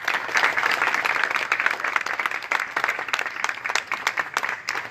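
Crowd applauding: many hands clapping steadily.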